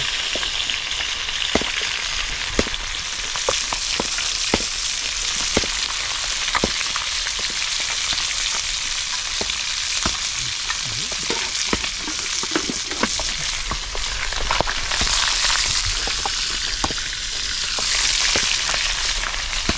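Mudskippers frying in hot oil in a wok: a steady sizzle, with scattered clinks and scrapes of the spatula against the pan as the fish are turned.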